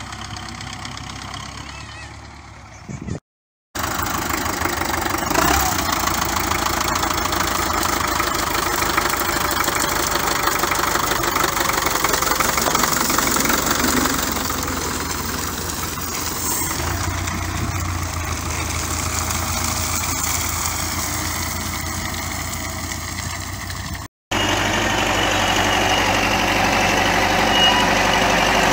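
Belarus tractor diesel engines running steadily across several short clips, each cut off by a brief dropout to silence about three seconds in and again near twenty-four seconds.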